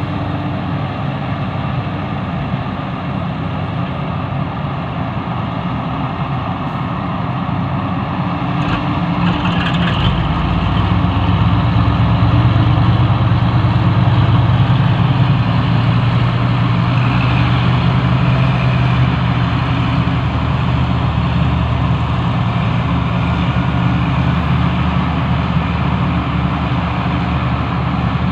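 Sumitomo SH350 excavator's diesel engine running steadily. About ten seconds in it grows louder and deeper, as when the engine takes on load while digging, and it holds there. A few brief clicks come just before the rise.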